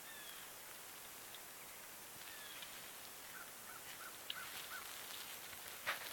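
Birds calling faintly: a few short chirps, then a run of five quick notes about halfway through. A sharp click comes just before the end.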